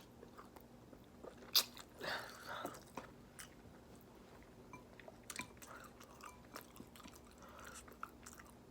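Chewing and mouth smacking while eating a saucy seafood boil of shrimp, potatoes and corn, with scattered sharp clicks and smacks, the loudest about one and a half seconds in.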